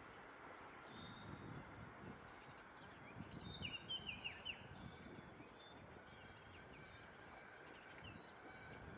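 Bird chirping: a quick run of short downward notes about three to four seconds in, over a faint low rumble of wind.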